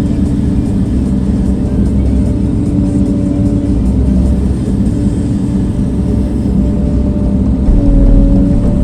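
An engine running steadily and loudly, with a whine that drops out about halfway through and comes back near the end, its pitch dipping slightly.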